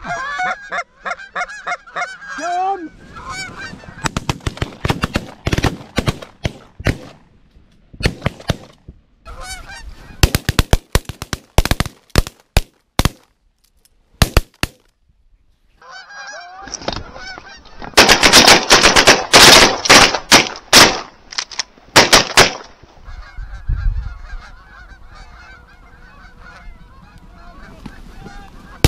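A flock of Canada geese honking and clucking as it circles in low over the decoys, in runs of short sharp calls. The calling swells to a loud, dense burst a little past halfway, then thins out.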